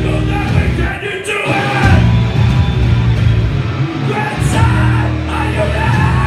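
Hardcore punk band playing live, with distorted guitar, bass and drums and shouted vocals, heard from within the crowd. The riff breaks off briefly about a second in, then drives on.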